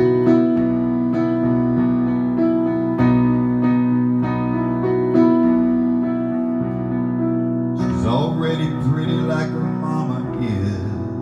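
Electronic keyboard with a piano sound playing sustained chords that change every couple of seconds in an instrumental break. About eight seconds in, a man's voice joins softly, with no clear words.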